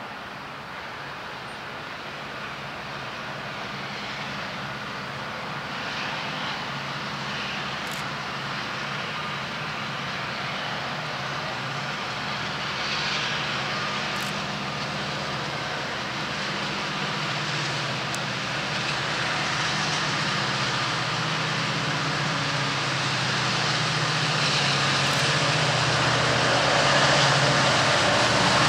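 Two EMD diesel-electric locomotives, a CP SD60 and a UP SD70M, approaching under full throttle with their two-stroke EMD 710 engines in notch 8, a steady engine drone that grows steadily louder as they near.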